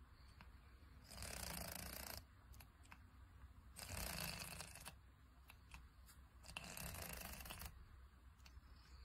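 A sleeping ginger cat snoring softly through its open mouth: three breathy snores, each about a second long, at an even pace roughly every two and a half to three seconds.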